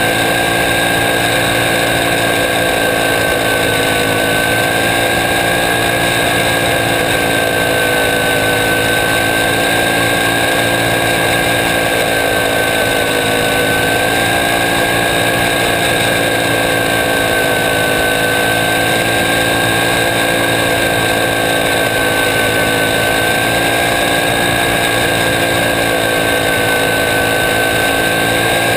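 Small race car's engine running hard at nearly constant high revs, loud and steady, its pitch only rising and dipping slightly through the corners.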